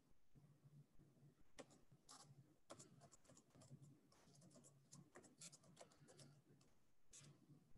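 Near silence, with faint, irregular clicks from about one and a half seconds in until near the end, over a low hum.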